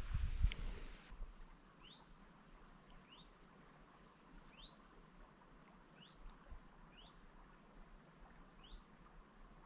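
Brief water splashing in the first second, then a small bird faintly repeating a short rising chirp about once a second.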